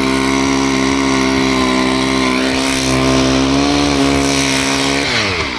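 Chainsaw running at full throttle with a steady pitch while cutting a log freehand; near the end the throttle is released and the engine pitch falls away.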